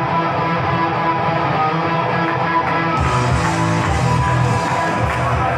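Loud rock music with electric guitar playing steadily.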